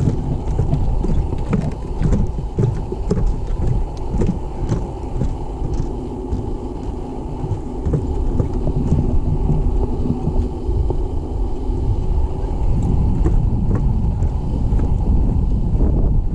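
Wind buffeting an action camera's microphone in a low, steady rumble, louder from about three-quarters of the way through, over footsteps on a wooden boardwalk.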